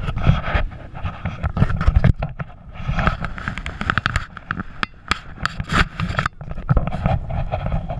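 Handling noise from a handheld camera being swung about: irregular knocks, scrapes and rustling over an uneven low rumble.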